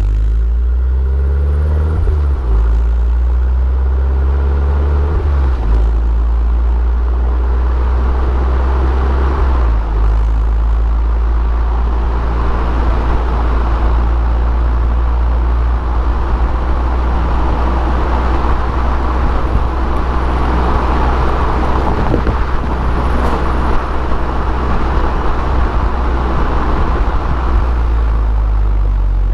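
Abarth Punto Evo's turbocharged 1.4 four-cylinder, in EsseEsse 180 hp tune, pulling hard through two gears: the engine note rises, drops at a shift about two seconds in, and rises again. From about six seconds in it settles into a steady drone at speed under road and wind noise.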